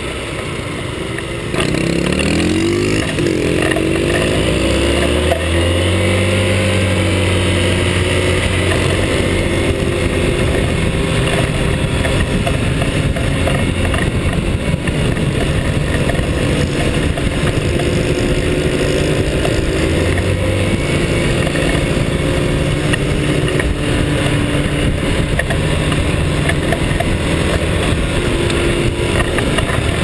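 Small motorcycle engine picking up speed about a second and a half in, its pitch climbing through the gears, then running steadily at cruising speed, with wind rush from riding.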